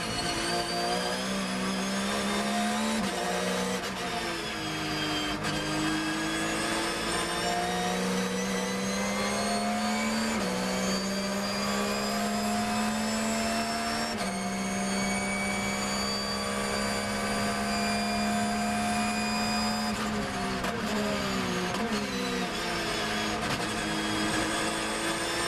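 Porsche 911 GT3 R's flat-six race engine heard from inside the cockpit, revving up through the gears with several upshifts, then holding high revs at speed. About twenty seconds in it drops through a quick run of downshifts under braking, then pulls hard again near the end.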